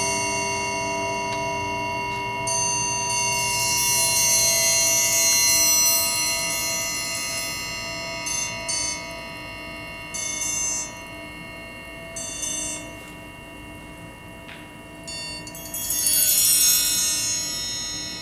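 Several orchestral triangles played in performance, ringing with many sustained high overtones. The ringing swells loud about three seconds in and again near the end, with a quieter stretch of short strokes in between.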